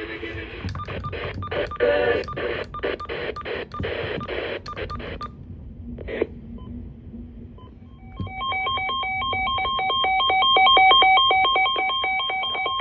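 Crackly, noisy audio with sharp clicks for the first few seconds. About eight seconds in, an Emergency Alert System attention tone starts: a harsh electronic alert of steady tones, pulsing rapidly, heralding a tornado warning.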